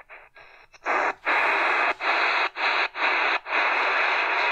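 AM static and hiss from a Tecsun PL-398BT portable radio's speaker as it is tuned between stations on the medium-wave band. After a near-quiet first second the hiss comes up, cuts out briefly about five times as the frequency is stepped, then runs on steadily.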